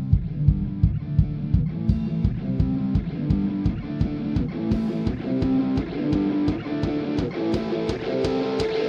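Background music: a rock track led by guitar over a steady drum beat.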